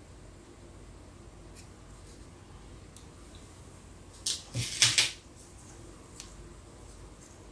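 Craft materials being handled: a short, loud burst of crackly rustling and scraping about four to five seconds in, with a few faint clicks before and after over a faint steady hum.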